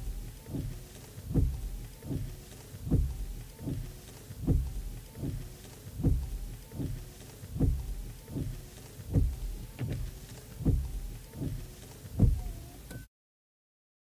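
Car windscreen wipers sweeping back and forth at a steady pace, a low thump about every three-quarters of a second, with the wiper motor's faint whine bending up and down in pitch with each sweep. The wiping cuts off suddenly about thirteen seconds in.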